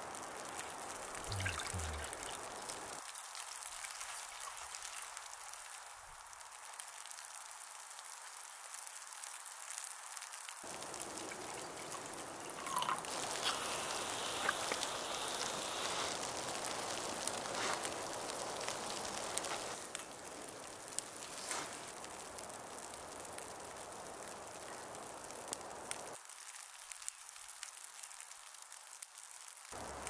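Steady patter and dripping of falling wet precipitation on a surface, with scattered sharper single drops.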